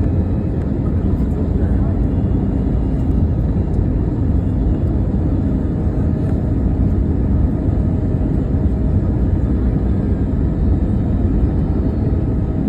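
Airliner cabin noise during a landing: a steady, loud low rumble of engines and rushing air.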